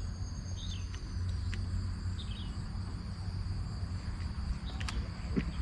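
Steady high insect chorus, an even buzz, over a low outdoor rumble, with a few faint clicks and chirps.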